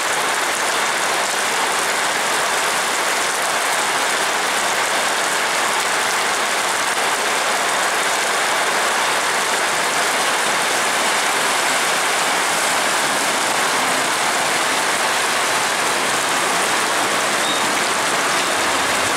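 Heavy rain falling on a road and vegetation: a dense, steady hiss with no let-up.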